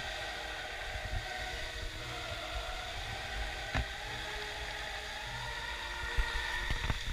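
Musical fountain's water jets rushing and splashing steadily, with sustained music notes underneath. A few brief low thumps, the loudest about six seconds in.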